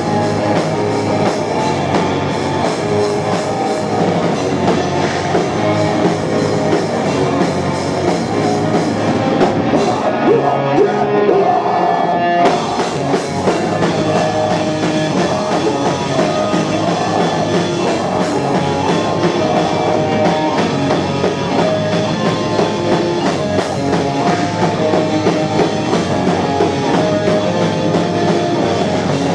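A live heavy rock band playing loud, with distorted guitars, bass and drums. About ten seconds in, the drums drop out for a couple of seconds, leaving the guitars, and then the full band comes back in.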